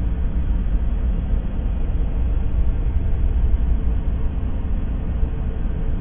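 Steady, continuous noise played for sleep or focus, heavy in the deep bass like a low rumble, with no breaks or changes.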